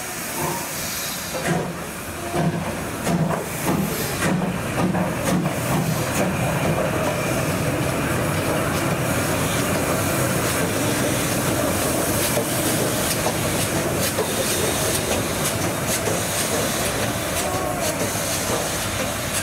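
Victorian Railways A2 class 4-6-0 steam locomotive moving slowly: soft exhaust chuffs about two a second for the first few seconds, then steady hissing steam with sharp clicks from the wheels on the rails.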